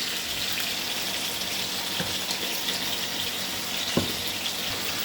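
Yardlong beans and jackfruit seeds sizzling in hot oil in a pan, freshly added, a steady hiss. A light knock of a utensil twice.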